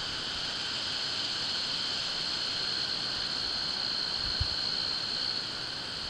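Steady high-pitched insect drone, like a summer chorus of crickets or cicadas, holding an even pitch without pause.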